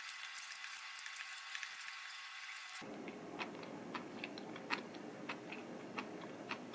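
Dry shells of grilled mosa shrimp crackling and snapping as they are peeled by hand, a dense run of small clicks. About three seconds in it changes to scattered light clicks and ticks as a fork lifts greens from a dish.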